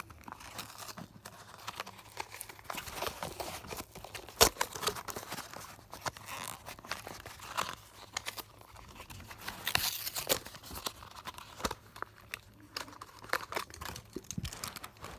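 Toy car packaging being torn and crinkled open by hand, with irregular clicks and rustles and a few louder crackles, as a die-cast car is taken out.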